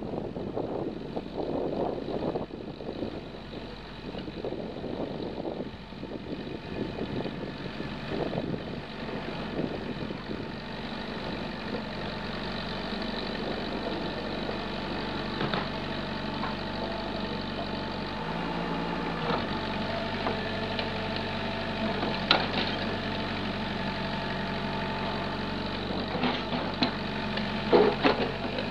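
Terex mini excavator's diesel engine running steadily while it digs, with a few sharp clanks in the second half.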